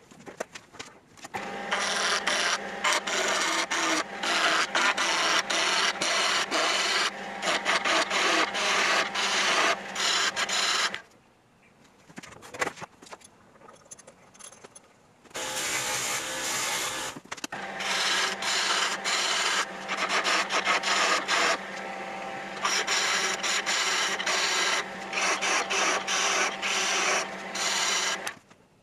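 Wood lathe spinning a pen blank between centres with a turning tool cutting it: the scraping, clattering sound of the tool on the wood over the motor's steady hum. The cutting stops for a few seconds near the middle, then resumes.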